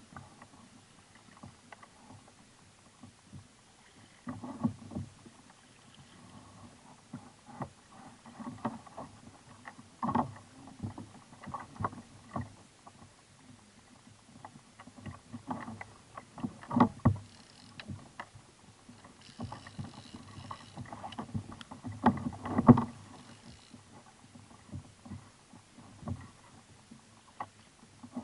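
Small waves slapping against a plastic kayak hull, with irregular knocks and thumps; the loudest come about 17 and 23 seconds in.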